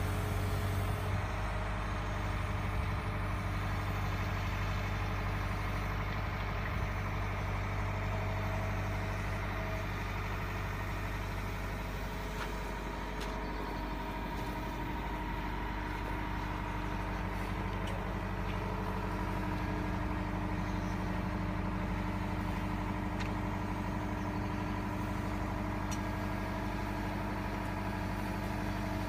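Liebherr A904C wheeled excavator's diesel engine running at a steady pitch.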